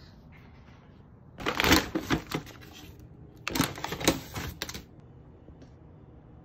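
Meal-kit packaging being handled, crinkling and rustling in two bursts of rapid crackles, each about a second long, the first about a second and a half in and the second a couple of seconds later.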